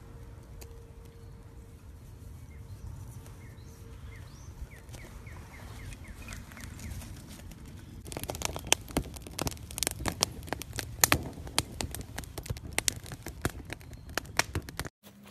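Low steady background noise, then from about eight seconds in a dense run of sharp, irregular crackles and snaps: dry twigs being laid onto a freshly lit tinder bundle and catching.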